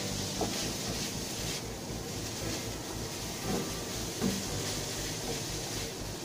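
Green beans and tempeh stir-frying in a pan on the stove: a steady hiss over a low hum, with a few light clinks of the spatula against the pan.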